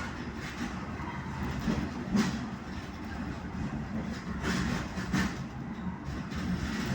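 Siliwangi passenger train running along the track: a steady rumble with the wheels clacking over rail joints every second or so.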